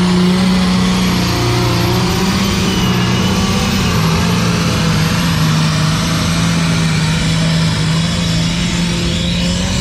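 A loud engine running steadily at a constant pitch, which dips slightly about a second and a half in and then holds.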